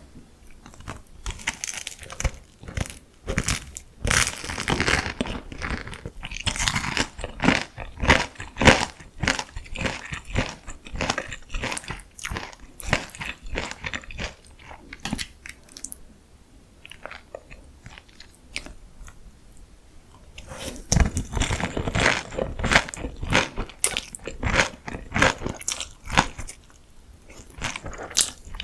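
Close-miked biting and chewing of crunchy deep-fried food: dense, crackling crunches. They come in two busy spells, with a quieter stretch of slower chewing in between.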